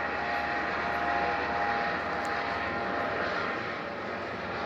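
Police helicopter passing, which the filmer takes for an Airbus H130: a steady rush of turbine and rotor noise with a high whine that fades about halfway through.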